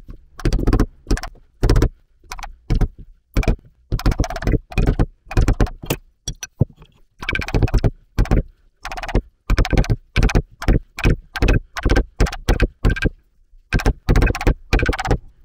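Hammer blows on steel, driving a part further onto the shaft of a tractor PTO bearing block, about two strikes a second with a couple of short pauses.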